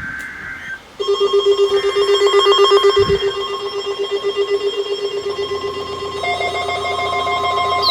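Electronic weather-radio alert tones sounding together: a steady high warning tone over a rapidly pulsing low buzz, starting about a second in. A low hum joins about five seconds in, and another steady tone about a second later.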